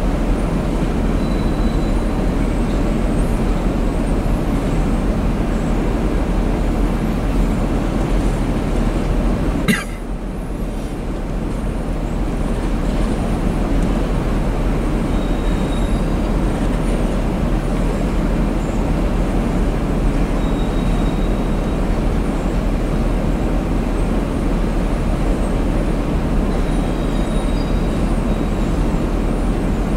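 Freight cars of a manifest train rolling past: a steady rumble of steel wheels on the rails. About ten seconds in there is one sharp click, after which the noise dips briefly and builds back.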